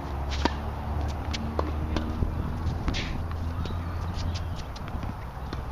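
Tennis racket striking the ball on a serve about half a second in, a sharp pop, followed by several fainter knocks of the ball bouncing and being hit around the court, over a low steady hum.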